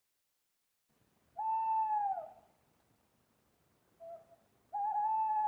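Owl hooting: one hoot about a second and a half in that drops in pitch as it ends, a short lower note around four seconds, then a longer hoot starting near the end.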